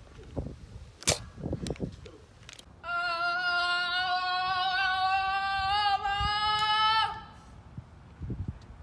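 A voice holding one long high note for about four seconds, rising slightly in pitch, starting and stopping abruptly. Before it, a sharp knock about a second in and a few soft scuffs.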